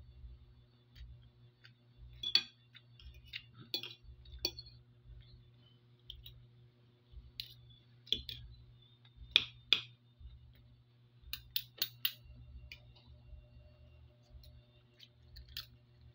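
Metal spoon and fork clinking and scraping against a plate while eating, in irregular taps, the loudest pair about nine and a half seconds in and a quick cluster a couple of seconds later. A steady low hum runs underneath.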